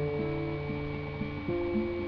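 Acoustic guitar played by hand: notes picked one after another ring over held chords, moving to a new chord about one and a half seconds in.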